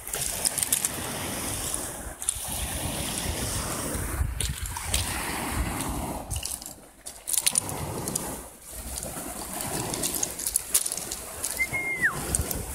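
Small waves washing and sloshing onto a pebble beach, broken by a few abrupt dips. Near the end comes a single high whistled note that holds and then slides down in pitch.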